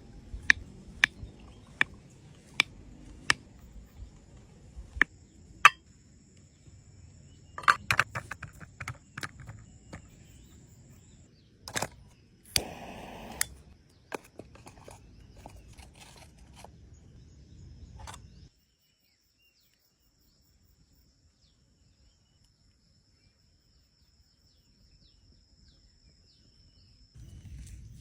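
A series of sharp knocks or taps at an even pace of a little over one a second, then a quicker cluster of knocks and a short scraping rush. About two-thirds of the way in the sound drops almost to nothing for several seconds.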